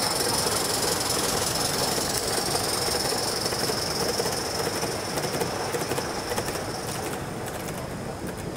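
Gauge 1 model steam train, a locomotive and a rake of coaches, rolling past on the track: a steady rush of wheels on rail that eases off, with a patter of sharp clicks over the rail joints as the last coaches go by.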